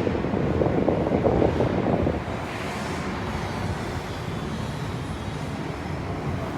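Wind buffeting the microphone, a steady rumbling noise that is louder for about the first two seconds, then drops and holds steady.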